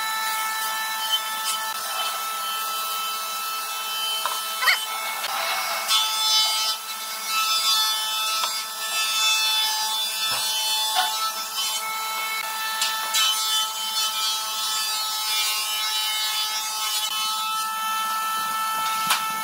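Wood being worked with tools: rubbing and rasping strokes, loudest in the middle, with scattered clicks over a steady mechanical whine.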